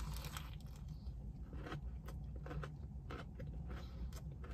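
A person biting into and chewing a tortilla wrap with lettuce: faint, scattered mouth and crunching sounds over a low, steady hum.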